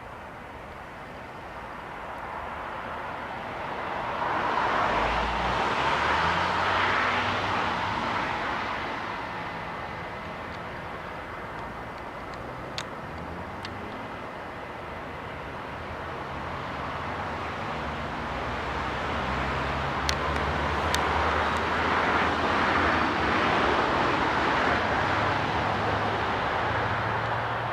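Two vehicles passing one after the other, each rising and fading over several seconds with a low engine hum and tyre or air noise; a few faint clicks between them.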